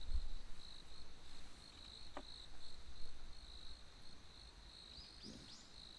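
An insect trilling steadily in a high, pulsing tone, with a faint knock about two seconds in and a few short rising chirps near the end.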